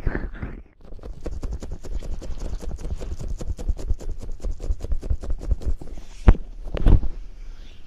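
Close-up rubbing and massaging of the back of an ear with petroleum jelly: a fast run of slick, sticky strokes, then two heavier strokes near the end.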